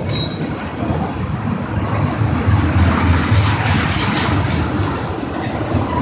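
Loaded freight train of tank cars rolling past at close range: a steady rumble of steel wheels on the rails, with a brief high squeal just after the start.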